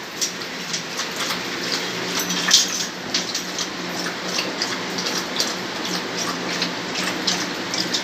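A dog with its muzzle in a stainless steel bowl, making a run of quick, irregular wet clicks and smacks as it eats or laps, over a faint steady low hum.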